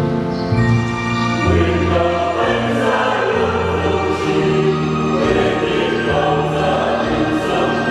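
Mixed choir of men and women singing the refrain of a Vietnamese Catholic hymn in harmony, holding long notes.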